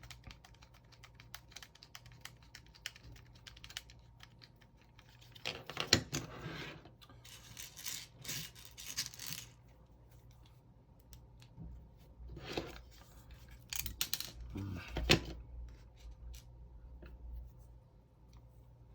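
Small 3D-printed plastic parts being handled and fastened with a tiny M2 screw: a run of rapid faint ticks in the first few seconds, then several short bursts of plastic rustling and clicking.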